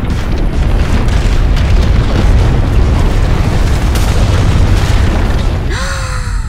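Explosion sound effect: a long, loud blast of noise with a heavy low end, swelling through the middle and easing off near the end. A brief falling pitched sound comes in just before the end.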